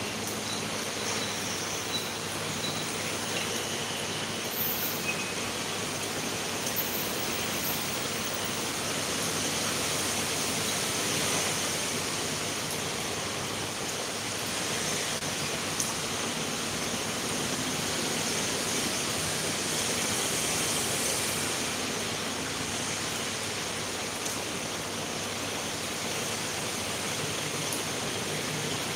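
A steady, even hiss with no clear events in it.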